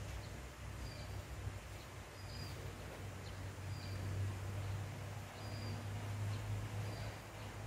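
Faint, short high chirps repeating about once every second and a half over a steady low hum.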